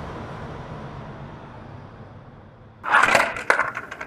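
A fading hiss, then about three seconds in a loud crash followed by a quick run of sharp cracks and clatters as a toy RC car smashes into something.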